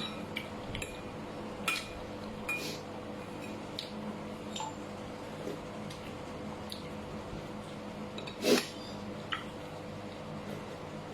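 Eating utensils clinking and tapping against a bowl and plate in scattered light clicks, with one louder knock about eight and a half seconds in, over a faint steady hum.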